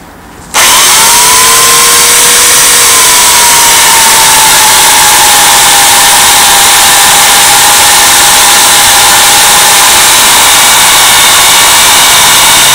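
Portland 14-inch electric chainsaw switching on about half a second in and cutting through a thick log, loud. Its motor whine settles a little lower in pitch over the first few seconds as the chain works into the wood, then holds steady.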